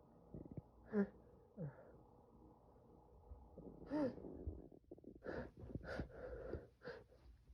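A man's short gasps and a voiced, rising-and-falling 'ah' about four seconds in, then a quick run of short breaths. This is the build-up to a sneeze brought on by snuffed chhikni, a Nepali sneezing powder.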